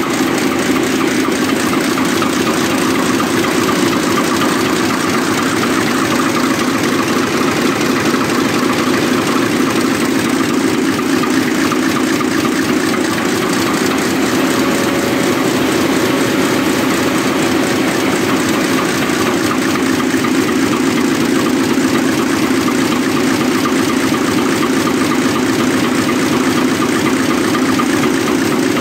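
Mirrlees Blackstone medium-speed diesel engine running steadily at an even speed, a loud continuous mechanical clatter with no change in pace.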